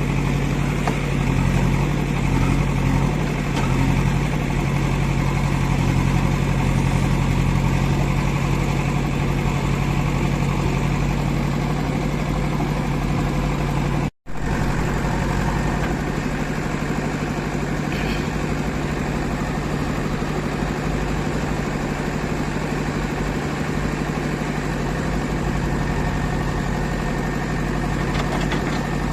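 JCB 3DX backhoe loader's diesel engine running steadily while it works, with a split-second dropout about halfway through.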